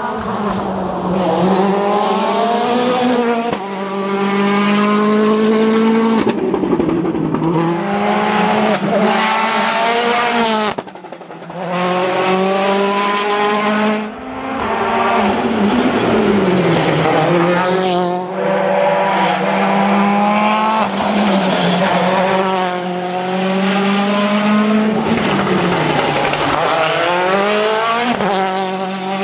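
Citroën DS3 WRC rally car's 1.6-litre turbocharged four-cylinder engine at full throttle, its pitch rising again and again through the gears and dropping back at each shift. There are short lifts off the throttle about 11 and 14 seconds in.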